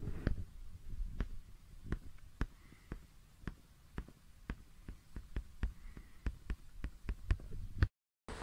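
A series of sharp clicks, each with a soft low thump, about two a second and coming faster near the end, then cut off abruptly.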